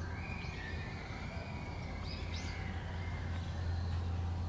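Outdoor background ambience with a steady low hum, a thin held whistle-like tone through the first half, and a few short bird chirps about halfway through.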